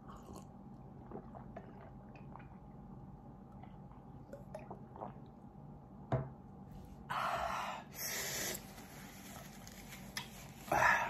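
Faint gulps and small mouth clicks as a man drinks water against the chili burn. Then come short breathy blasts, about seven and eight seconds in, and a louder one near the end, as he breathes out hard against the heat of the ghost pepper.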